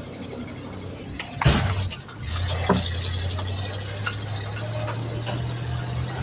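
Engine of a homemade Doodlebug skidder built from a 1990 Dodge W250 idling steadily, with a loud metallic clank about a second and a half in and a lighter knock a second later.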